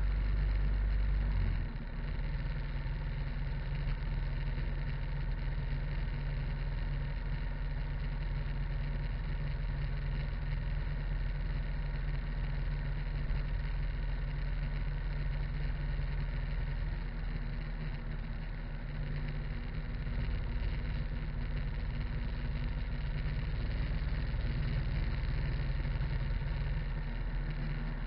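Harley-Davidson motorcycle cruising on the road: a steady engine note mixed with wind and tyre noise picked up by a camera mounted low by the front wheel, dipping slightly in level about a second and a half in.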